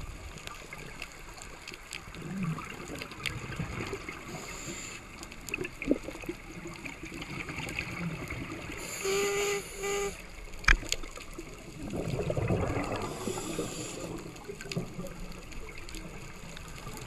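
Underwater scuba sound: a diver's regulator breathing, with a short humming tone on an inhale about nine seconds in and a gurgling rush of exhaled bubbles from about twelve to fourteen seconds. Scattered small clicks throughout, with one sharp click near eleven seconds.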